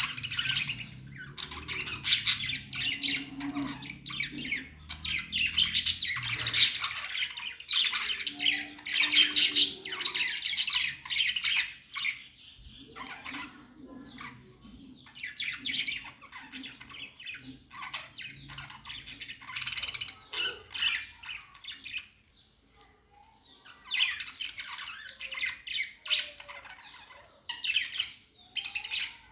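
Budgerigars (budgies) chattering and squawking: a dense run of short, high chirps and squawks that overlap, easing briefly about three-quarters of the way through.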